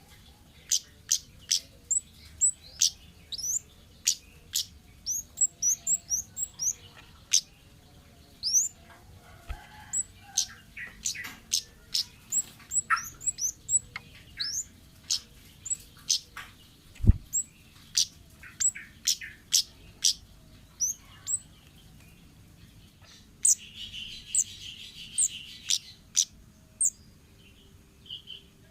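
Kemade bird calling: a long series of short, sharp, high chirps that drop in pitch, given one to three a second with brief pauses, and a buzzy chattering run a little before the end. A single thump sounds about halfway through.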